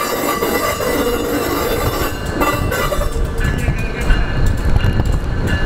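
Steel wheels of towed Budd R32 subway cars squealing on street-running track, several steady high tones together. From about three seconds in, a heavier low rumble with scattered clicks takes over as the last car rolls over the track work and away.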